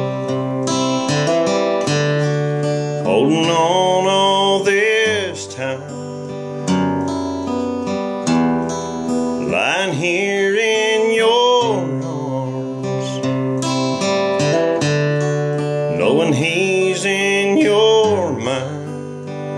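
A man sings to his own acoustic guitar accompaniment: the guitar plays throughout, and his voice comes in three phrases with held, wavering notes, a few seconds in, about halfway through and near the end.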